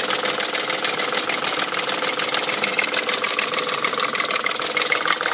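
BMW M62 V8 engine idling with a fast, steady clatter of ticks, which the owner suspects comes from worn timing chain guide rails.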